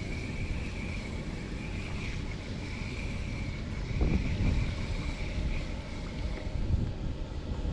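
Wind buffeting the microphone on a kayak on open water, with a louder gust about four seconds in. A faint steady high whine runs under it and stops near the end.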